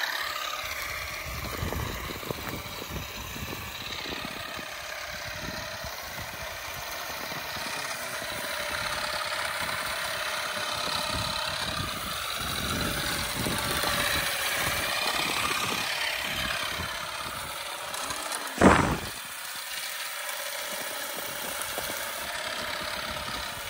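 Derentürk electric olive harvester, powered from a tractor battery, running as its beater head works through olive branches, with its whine rising and falling in pitch. A single loud knock about three quarters of the way through.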